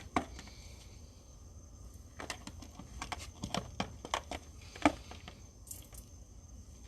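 A quick run of light clicks and knocks, busiest from about two to five seconds in, with one louder knock near five seconds, like small objects being handled and set down.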